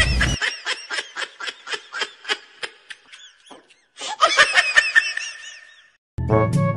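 Laughter in quick, high-pitched 'ha-ha' pulses that fade away, then a second burst of laughter about four seconds in that also dies out. Music starts near the end.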